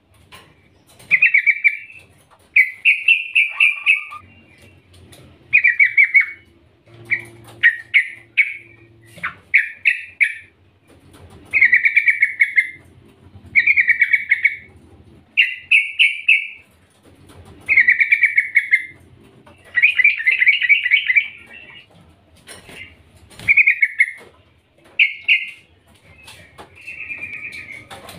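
Yellow-vented bulbul (trucukan) calling over and over: short chattering phrases of rapid notes, about one every two seconds. The uploader presents these as a female's calls to draw a male.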